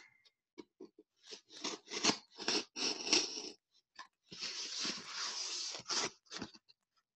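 Cardboard shipping box being opened by hand: a series of short scratching, scraping strokes as the packing tape along its edge is cut and picked at, then one long tearing rip about four seconds in as the box is torn open, followed by a few more cardboard scrapes.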